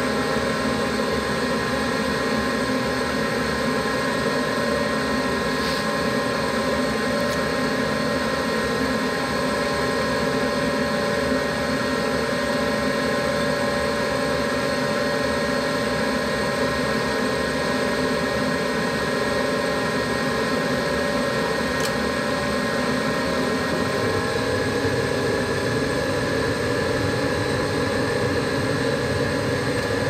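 Gas furnace running with its burners lit: a steady hum of its draft inducer blower and burners, which changes in tone about four-fifths of the way through.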